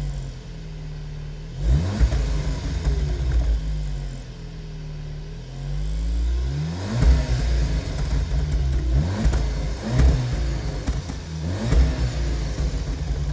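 SEAT Leon Cupra ST 300's turbocharged 2.0-litre four-cylinder idling through its original factory exhaust. It is revved several times in short blips and drops back to idle between them.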